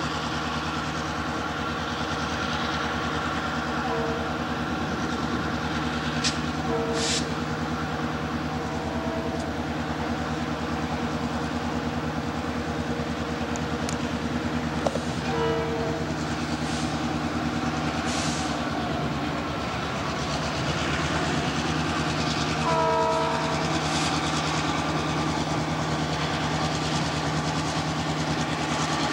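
Diesel-electric freight locomotives running steadily, with an air horn sounding several short blasts, the longest about halfway through and another later on, and a few brief high squeals from the train.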